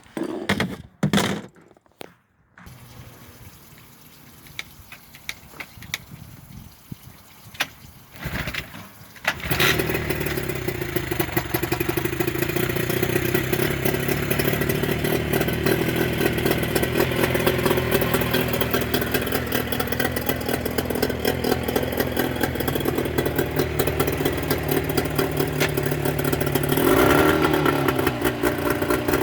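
Mercury 25 hp two-stroke outboard being started: a few short starting attempts, then it fires about a third of the way in and runs steadily, its pitch shifting near the end. It is the first test run with freshly fitted Boyesen power reeds, fitted to cure a rough idle.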